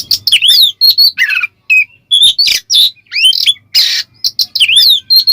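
Oriental magpie-robin (kacer) singing a loud, fast string of varied whistled notes, rising and falling sweeps mixed with a few harsh rasping notes.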